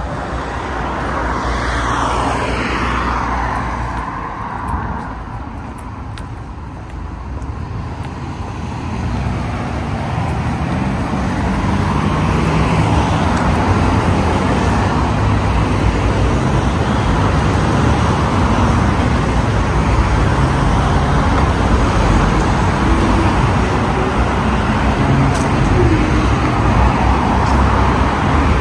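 Road traffic: a vehicle passes in the first few seconds with a falling pitch, then the steady rush of traffic grows louder and holds.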